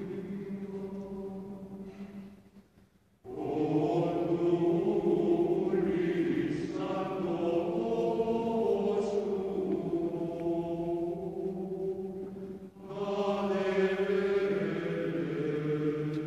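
Mixed chamber choir singing slow, sustained chords in a large stone church. A phrase fades out about two seconds in, and after a second's pause a new phrase enters. There is another brief breath near the end before the choir comes back in.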